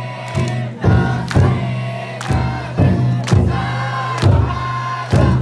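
Futon daiko float's taiko drum beaten in a steady rhythm, with a crowd of bearers chanting and shouting along with the beat.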